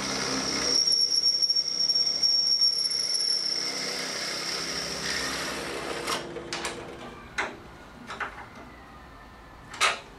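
Drill press running with its bit cutting through metal angle iron, giving a steady high squeal for about three seconds from about a second in. The machine sound then dies away and several sharp clicks and knocks follow, the loudest near the end.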